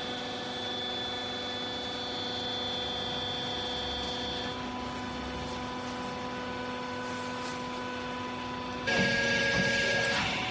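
Hydraulic clothes baler's motor and pump running with a steady hum. Near the end it gets louder, with a rushing noise and a brief higher whine.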